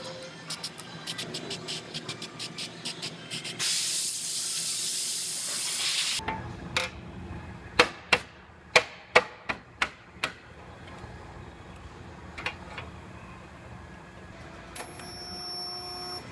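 An aerosol spray can is shaken with its mixing ball clicking, then sprays in a steady hiss for about two and a half seconds onto a steel plate. Then come about eight sharp metal knocks, the loudest sounds, as sheet-metal parts are fitted onto the car's frame rail.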